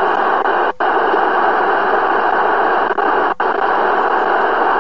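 Cobra CB radio's speaker hissing with loud, steady static as it receives, cut by two brief dropouts, about a second in and past three seconds.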